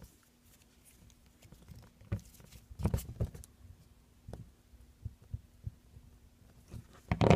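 A plastic Play-Doh stamper figure handled and pressed into the dough on a tabletop: scattered soft thumps and clicks, a cluster about three seconds in and the loudest knock near the end, over a faint steady hum.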